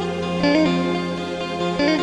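Background music: a plucked string instrument playing a slow melody, with new notes struck about half a second in and again near the end.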